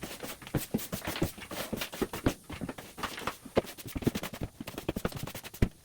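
Rapid, irregular knocks, taps and clatter, several a second, as from work and handling of things in a small room.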